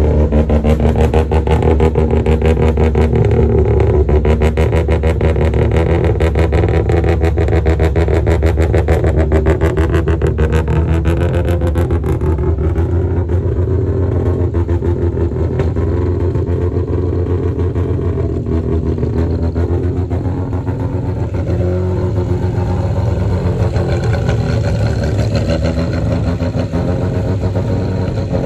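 Car engine running at close range with a rapid, even exhaust pulse that is strongest in the first half and smooths out after about twelve seconds.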